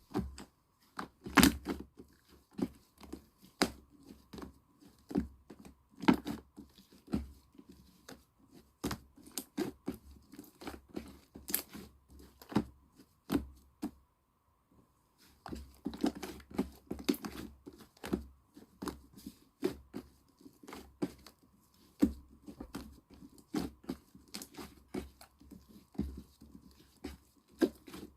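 Hands squishing and pressing a soft clay slime (butter slime made with air-dry clay), giving irregular sticky clicks and crackles, with a brief pause about halfway.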